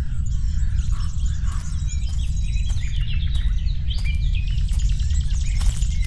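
Many small birds chirping and twittering over a steady low rumble.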